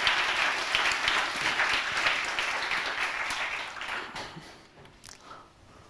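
Audience applauding, a dense patter of many hands clapping that dies away about four seconds in.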